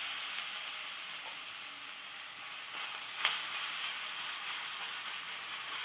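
Oil sizzling steadily in a nonstick kadai as thick adai batter is ladled in to fry, with a single sharp click a little past the middle.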